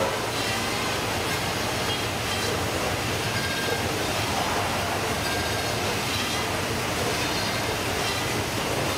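Baader fish-processing machine running as whole fish are fed into it by hand: a steady, dense mechanical clatter and hum from its cutting units and conveyor.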